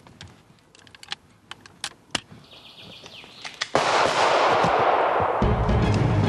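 A single loud pistol shot about four seconds in, its noise dying away over a second or so. Before the shot there are only faint scattered clicks, and near the end low drum-heavy music comes in.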